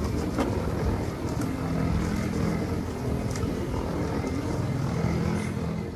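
An engine running steadily, a continuous low mechanical drone that eases off at the very end.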